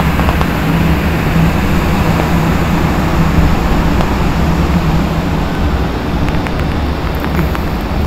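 Steady low hum and rushing air of large rooftop exhaust fans running, easing slightly in the second half.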